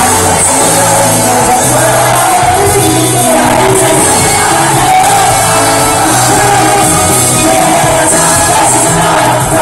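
Live band playing a song loudly, with a sung melody over a moving bass line and shouts from the crowd mixed in.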